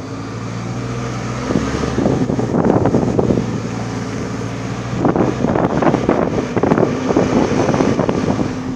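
Vehicle engine running with a steady low hum, heard from inside the cab. Twice, from about a second and a half in and again from about five seconds in, wind buffets the microphone in long rough stretches.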